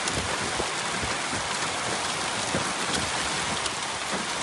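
Hailstorm with heavy rain pelting the ground: a steady, dense hiss dotted with small sharp ticks of hailstones striking.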